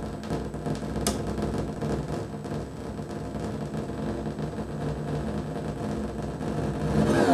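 Hand-built circuit-bent noise machine putting out a steady electronic drone of layered low buzzing tones with a flickering, glitchy texture. A sharp click comes about a second in, and near the end the sound gets louder as sweeping tones come in.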